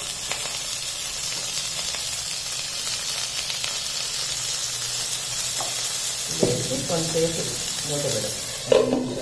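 Frozen green peas just added to hot oil with sautéed onions and carrots, sizzling steadily in a nonstick pan while a wooden spatula stirs them. A few brief pitched sounds come in over the sizzle in the last three seconds.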